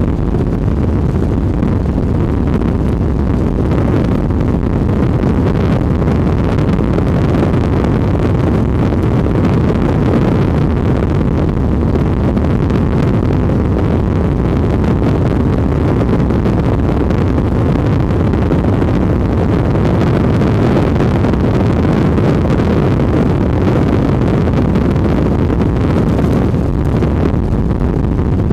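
Strong wind buffeting the microphone: a loud, steady, low rush with no breaks.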